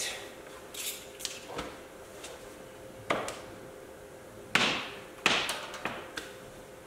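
Handling noises of a steel combination wrench and a roll of thread-seal tape: a string of short knocks and clinks, the sharpest about three seconds in and again around four and a half to five seconds in, over a faint steady hum.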